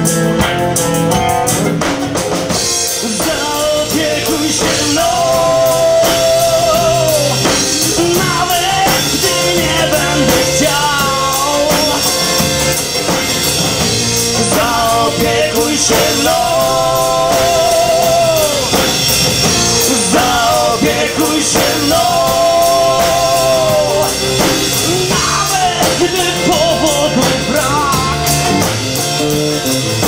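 Live band playing a rock song: a man singing long, wavering held notes over acoustic guitar, drum kit and bass guitar.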